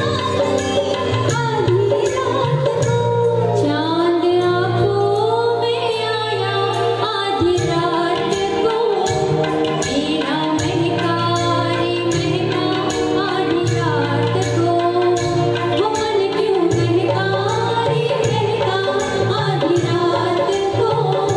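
Two women singing a song into microphones, taking turns and then together, over amplified instrumental accompaniment with a steady beat.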